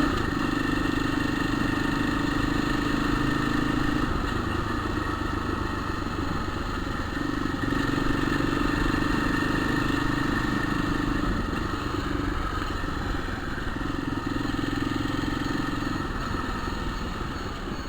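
Motorcycle engine running steadily, its drone shifting about four seconds in, again around eight seconds and near the end. The bike has a faulty gearbox that is hard to shift and rumbles in third gear.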